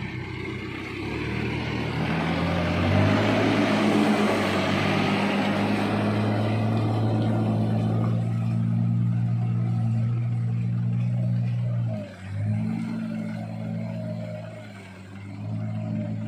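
Heavy diesel engine of a truck or backhoe loader running hard: its revs climb in the first few seconds, hold steady for a long stretch, then drop briefly about twelve seconds in and again near fifteen seconds before picking up.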